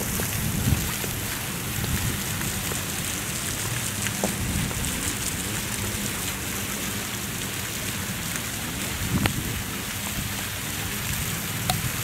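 Ground-level fountain jets splashing onto wet paving: a steady, rain-like patter of falling water, with a low rumble underneath and a few scattered clicks.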